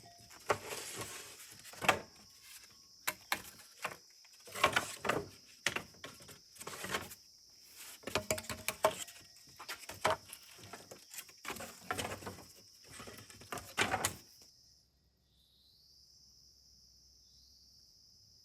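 Irregular knocks, thunks and clatter of things being handled, over a steady high chirring of night insects such as crickets. The knocking stops about 14 seconds in, leaving only the insects.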